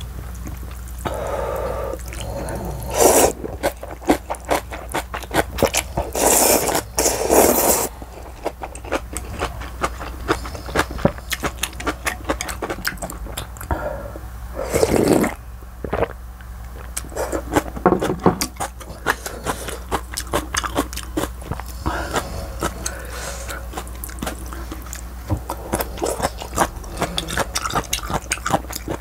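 Close-miked mukbang eating of warm noodle soup: loud slurps of noodles and broth, several in the first eight seconds and one about halfway through as broth is sipped from the bowl. Wet chewing and small mouth clicks run between them.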